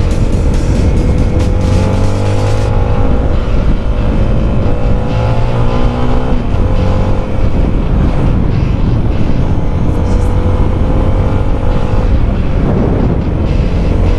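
Yamaha Sniper 155's single-cylinder engine pulling under way, its note rising slowly and then dropping at a gear change about six seconds in and again near the end.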